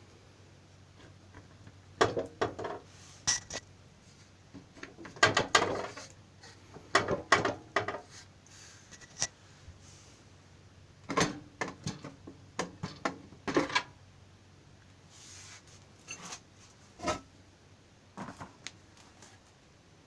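Metal parts and a hand tool clinking and knocking in scattered short bursts as a motorcycle's exhaust is unbolted and taken off.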